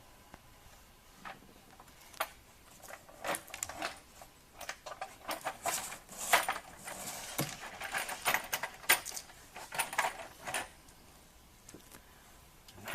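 Irregular clicks, knocks and light clatter of an intake manifold and its parts being handled and worked into place on a Chevrolet 5.3 L V8, busiest in the middle and dying away near the end.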